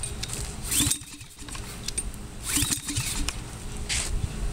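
Pull-starting a go-kart's Honda small engine after a shot of starting fluid: the recoil starter cord is yanked about three times, each a short rasping zip, and the engine does not catch.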